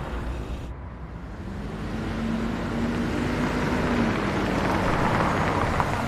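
A Volkswagen saloon taxi drives up the road and pulls over to the kerb, its engine and tyre noise growing louder as it approaches.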